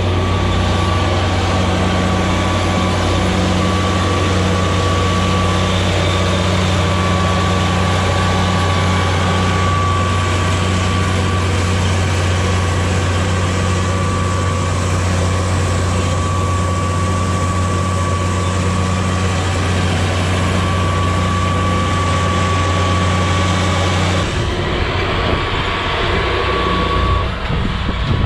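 Tractor engine running steadily, a deep even hum with a thin high whine over it; the engine note changes a few seconds before the end.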